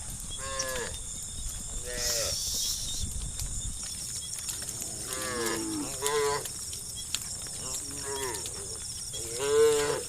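Livestock calling: a string of short, pitched calls, about five in all, the loudest near the end.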